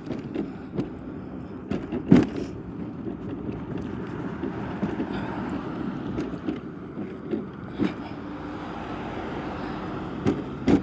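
Steady road noise of a car, a hiss of tyres and engine, with a few short sharp knocks about two seconds in, near eight seconds and near the end.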